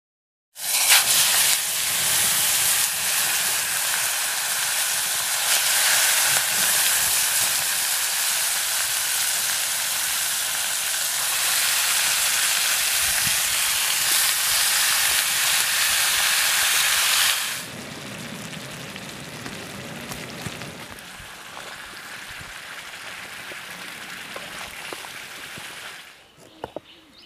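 Food frying in hot oil in a black iron wok over a wood fire: a loud, steady sizzle that drops to a much quieter hiss about two-thirds of the way through.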